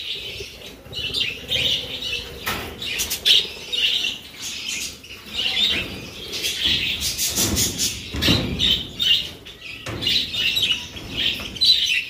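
A flock of budgerigars (Australian parrots) chirping and chattering continuously in an aviary, with several flurries of wings flapping as birds take off.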